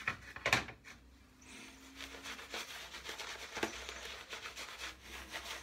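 PAA Peregrino shaving brush scrubbing lather onto the face and neck, an uneven brushy swishing that rises and falls. Two sharp knocks come in the first half second, before the brushing.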